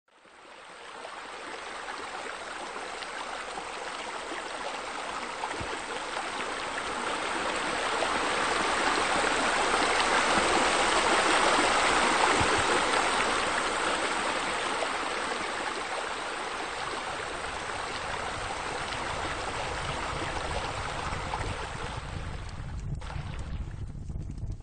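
Steady rush of flowing water that fades in, swells to its loudest around the middle, then eases off; near the end the hiss thins out and a low rumble takes over.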